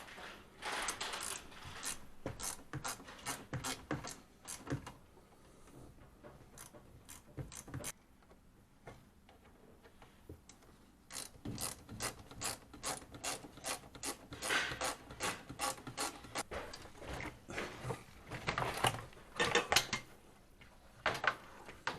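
Hand screwdriver clicking in runs of rapid ratchet clicks while Phillips screws are backed out of metal trim. The clicks are sparse in the middle and grow busier and louder in the second half.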